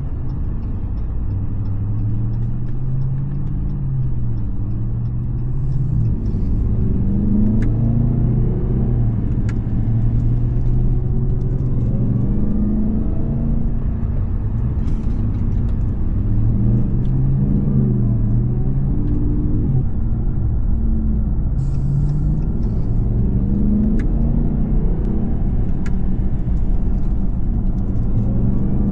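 Ram TRX's supercharged 6.2-litre V8 running while the truck is driven, exhausting through an aftermarket exhaust with SLP resonators. The engine pitch rises and falls several times with throttle and gear changes, with a few short clicks.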